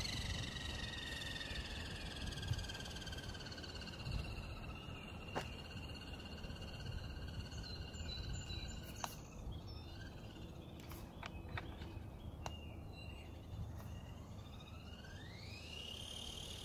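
Faint whine of an RC drag car's electric motor and drivetrain as it runs away down the road, its pitch falling slowly and fading over the first half. A few faint clicks follow, and near the end the whine rises again as the car accelerates back.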